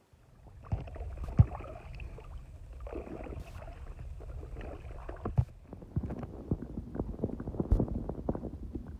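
Kayak paddling: paddle splashing through the water, with a sharp knock about a second and a half in. In the last few seconds the sound turns to a muffled underwater rumble and gurgle with many small clicks, as the camera goes below the surface.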